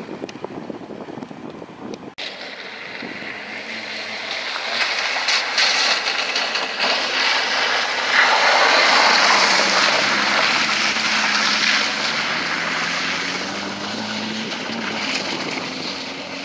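Peugeot 205 rally car driving hard on a wet gravel track: engine revving and tyres churning gravel and splashing through puddles. It grows louder as it approaches, is loudest as it slides past about eight seconds in, then fades gradually as it pulls away.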